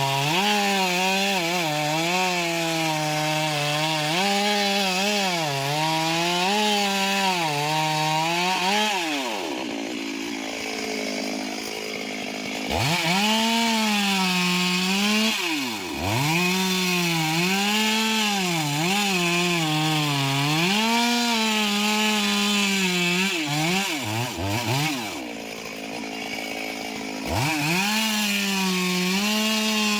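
Two-stroke chainsaw cutting into a large anjili (wild jack) trunk; the engine speed repeatedly sags under load and recovers. The saw eases off for a few seconds about a third of the way in and again near the end, then winds back up to cutting speed.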